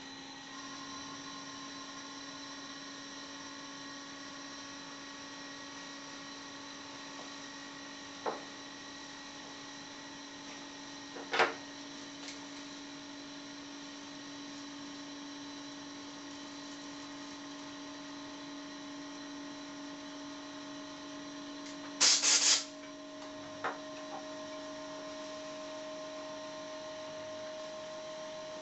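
Homemade silent air compressor running with a steady hum. Two sharp clicks come through the hum, and a brief loud hiss sounds about two thirds of the way in.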